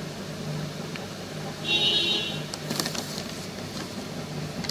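Paper invoice handled and crinkled against a steady low hum, with a brief high-pitched tone about two seconds in.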